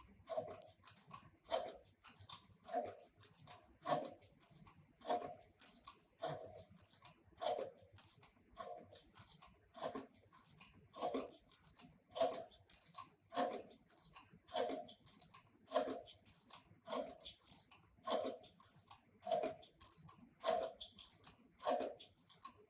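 Heavy-duty leather stitching machine sewing 18 mm thick, stiff vegetable-tanned leather at slow speed, about one stitch cycle a second (50 stitches per minute). Each cycle is a short clunk with clicks as the needle goes through the leather, and the servo motor itself is barely heard.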